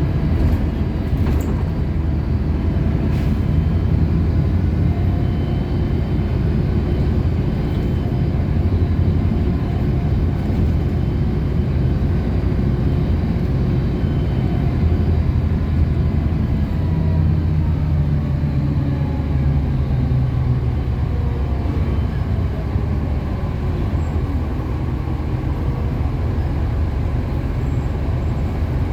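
City bus in motion, heard from inside the cabin: a steady low engine and road rumble, with the engine note shifting about two-thirds of the way through.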